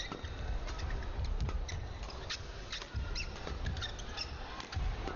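A badminton doubles rally: rackets striking the shuttlecock and players' shoes squeaking sharply on the court, over a low arena rumble.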